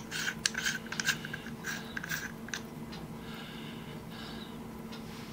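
Small metal clicks and light scraping as the parts of a hand drill's chuck are turned and fitted together by hand, then a soft rasp about three seconds in as the chuck shell is spun. A faint steady hum sits underneath.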